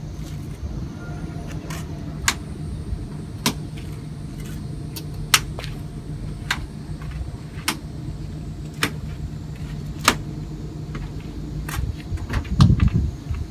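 Plastic push-pin clips on the cover above the Toyota Land Cruiser 200's grille popping out one by one: sharp clicks about once a second, about a dozen in all. A louder clatter of the cover being handled comes near the end.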